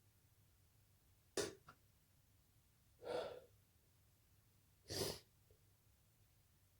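A person with a cold stifling a sneezing fit into a pillow: three short bursts of breath about two seconds apart, a sharp stifled sneeze, then a gasping in-breath, then a hissing out-breath.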